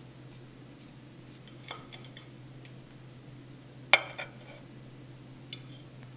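Metal knife and fork clinking and scraping against a plate while cutting a baked crescent roll. A few light clinks, with the loudest, briefly ringing clink about four seconds in and one more near the end.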